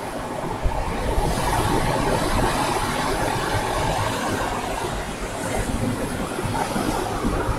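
Ocean surf washing onto a sandy beach, a steady rushing that swells about a second in, with wind buffeting the microphone as an uneven low rumble.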